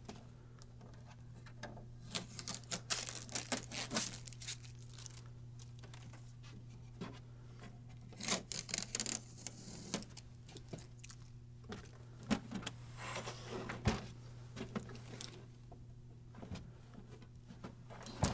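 Blue shipping tape being peeled off a printer's plastic casing: three spells of crackly ripping and crinkling, with a few knocks from handling the printer, over a steady low hum.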